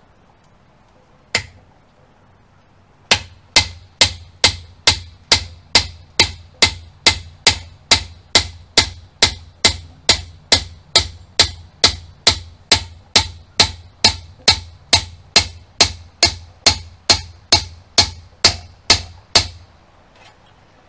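Hammer striking a scythe peening jig, each blow with a short metallic ring, as the blade's edge is peened thin. One blow about a second in, then a steady run of blows at about two and a half a second that stops a second or so before the end.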